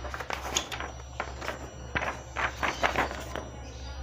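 A sharp slaughtering knife (golok) slicing through paper in a cutting test of its edge: a run of short, irregular crisp rasps, in three clusters.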